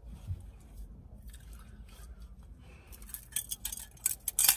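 Glass soda bottle being worked open: a run of sharp metallic clicks and clinks against the glass in the second half, loudest just before the end.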